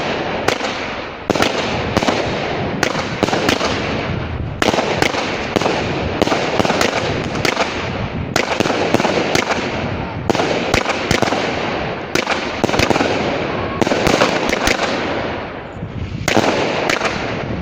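Two 'Poison' firework batteries fired at the same time, a rapid, continuous run of shots and bursts over a steady noisy fizz. There is a brief lull about 16 seconds in before a last flurry.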